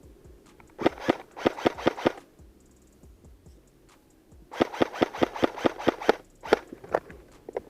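Airsoft gun firing two strings of rapid shots, about six to eight a second, the second string longer, then a few single shots near the end.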